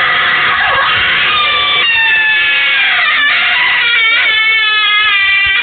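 A creepy Halloween novelty doorbell playing its loud recorded scare sound, a crying voice with long wavering held notes, cut off abruptly at the end.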